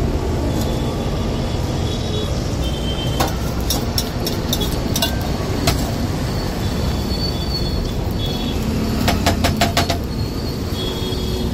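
Eggs frying in oil on a large flat iron griddle over a steady low rumble, with short clusters of sharp clicks a few seconds in and again near the end.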